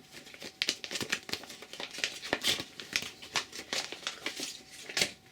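Crinkling wrapping being handled by hand, a busy run of crackles and rustles that stops suddenly near the end.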